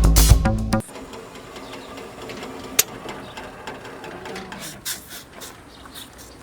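Background music with a beat that cuts off about a second in, followed by faint scattered clicks and rattles over quiet background noise.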